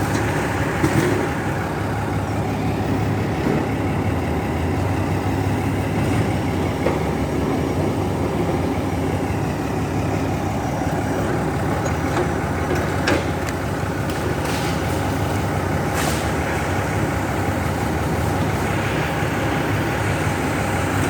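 Diesel engine of heavy equipment running steadily, with a few short knocks along the way.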